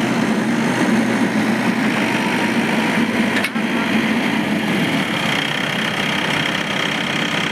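Diesel engine of earthmoving machinery running steadily at a fairly even speed, loud and close.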